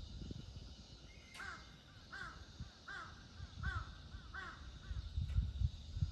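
A crow cawing five times in an even series, about one caw every three-quarters of a second, over low rumbling on the microphone.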